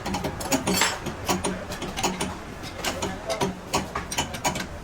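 Hand tools and metal parts clicking and clinking in quick irregular strokes, several a second, during work on a diesel injection pump.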